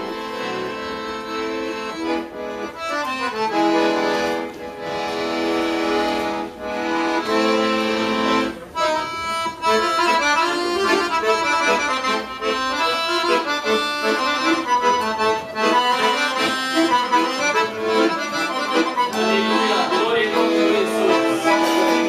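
Roncalli piano accordion playing an instrumental introduction to a song. It holds sustained chords for about the first eight seconds, then moves into a quicker melody of running notes.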